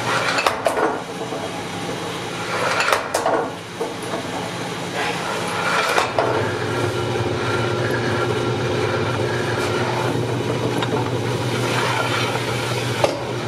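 A restored 100 lb drop hammer running under power: its belt-driven overhead drum and pulleys, turned by a 1.5 hp Dayton electric motor, give a steady mechanical hum, broken by a few sharp knocks as the ram comes down onto a wooden block on the die.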